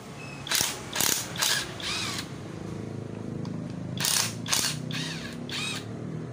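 Cordless impact driver with a socket spinning nuts off the cylinder head of a Honda Scoopy engine. It runs in short bursts, each with a rising whine: four about half a second apart, a pause, then four more from about four seconds in.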